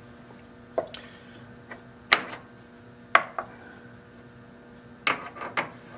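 Several sharp metal clinks and knocks as tools and the part-off blade holder are handled at a metal lathe's tool post, over a faint steady hum.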